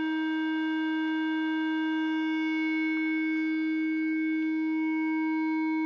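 A steady electronic test tone, one held note with overtones, unchanging in pitch and level, coming out of a BOSS ME-10 guitar multi-effects unit during an operation check.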